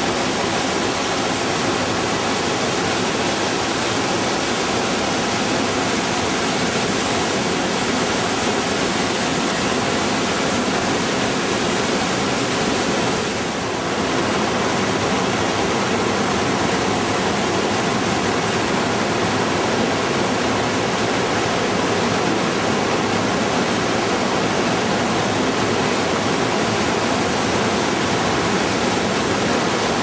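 The Rhine Falls heard up close: a steady, loud rush of water plunging and churning at the foot of the falls, dipping briefly about halfway through.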